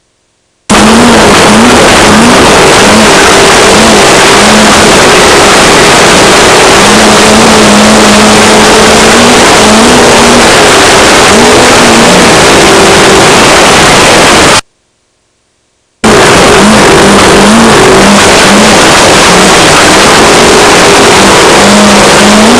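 Off-road race car engine, heard from inside the car, revving up and falling back again and again under hard driving, with a dense rush of wind and running noise. It is loud enough to overload the microphone. The sound drops out completely twice for about a second, at the very start and about two-thirds of the way through.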